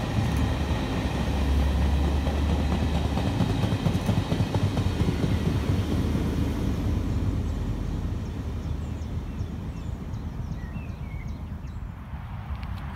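Eurotunnel Krupp diesel locomotive and test train passing, with a steady low engine hum and rail noise. The sound fades away over the second half as the train recedes.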